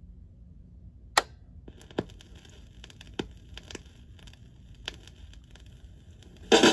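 Turntable stylus tracking the lead-in groove of a 45 rpm vinyl single: surface hiss with a few sharp clicks and pops, the loudest about a second in. The record's music starts loudly near the end.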